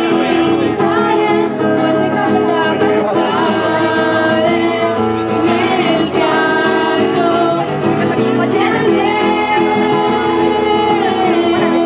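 Live song: a woman singing into a microphone over instrumental accompaniment.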